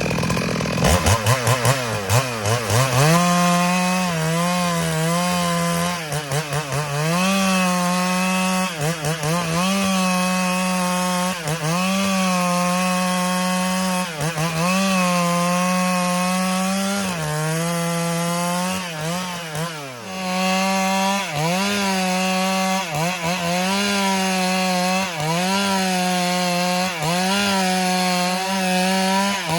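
Stihl MS382 two-stroke chainsaw at full throttle ripping a log lengthwise. The engine pitch sags under load and recovers about every two seconds. It revs up over the first few seconds and drops off briefly about twenty seconds in.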